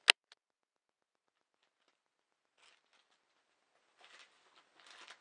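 A sharp click at the very start, then near silence broken by faint rustling and light handling ticks about two and a half seconds in and again near the end.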